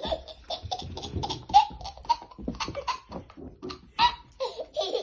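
A baby laughing in a rapid string of short giggles.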